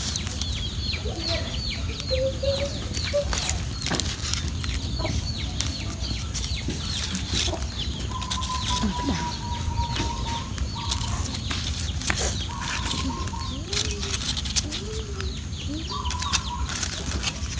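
Chickens clucking, with rapid short high peeps repeating throughout and a few longer calls in the second half, over scattered crackles from the wood fire.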